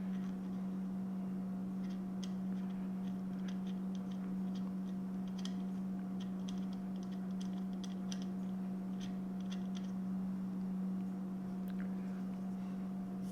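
Steady low electrical hum with faint, scattered small clicks and rustles: the alternator and its packaging being handled.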